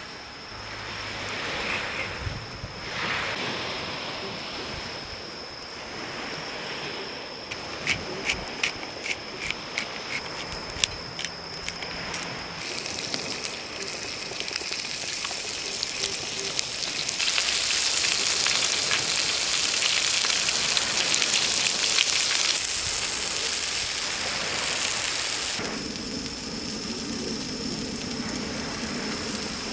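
Insects trilling on one steady high note throughout. A campfire crackles in a run of sharp pops about a third of the way in, and a louder stretch of steady hiss follows in the middle.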